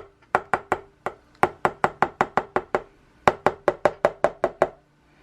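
Rapid runs of sharp clicks, about five a second, with brief pauses between the runs, as petroleum jelly is squeezed from a pastry piping bag into a small container.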